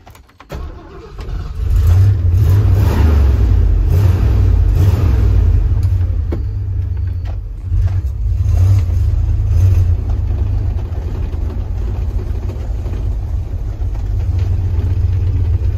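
1979 Ford F-250 engine cranking and catching about two seconds in, then running with a few blips of the throttle in the first seconds before settling into a steady idle. The owner says the carburetor is flooding the engine.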